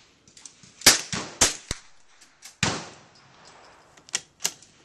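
Gunshots from several guns on a shooting line: about seven sharp cracks at irregular spacing, the loudest about a second in. Some come too close together to be one bolt-action rifle.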